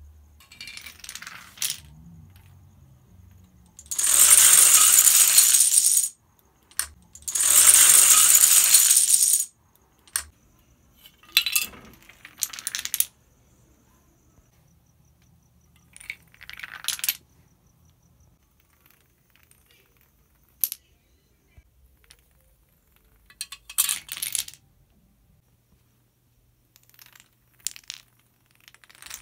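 Chains of small dominoes toppling onto a hard tile floor, a rapid dry clatter of many pieces. Two long runs of about two seconds each come a few seconds in, followed by several shorter clattering bursts.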